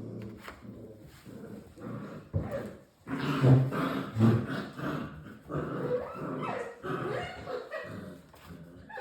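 Six-week-old English Springer Spaniel puppies making a quick jumble of short, high yips and little growls as they play-fight, starting about three seconds in after a few light knocks.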